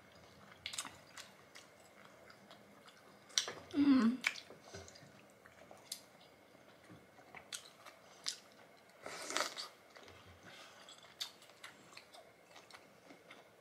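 Close-up eating of jumbo prawns: chewing and lip-smacking with scattered small crunches and clicks. There are two louder, longer bursts, about four seconds in and around nine seconds in.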